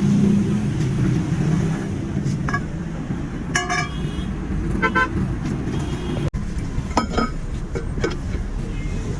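Steady low rumble of roadside traffic and running engines, with several short vehicle horn toots through the middle.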